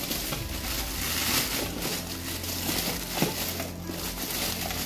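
Plastic packaging crinkling and rustling as it is handled and unwrapped, with a few small knocks along the way.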